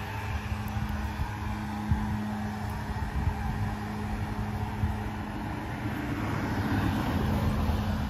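A steady mechanical hum with a constant low rumble and an even background noise, such as a running motor or engine close by.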